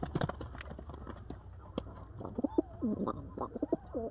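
Domestic pigeons scuffling in a loft: sharp taps in the first couple of seconds, then repeated rolling coos from about halfway in.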